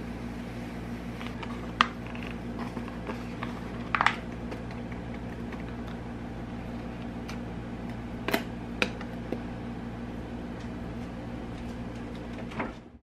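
Stevia powder poured from a pouch into a small plastic container, with a few light plastic clicks and taps from the container, its flip lid and the scoop, over a steady low hum.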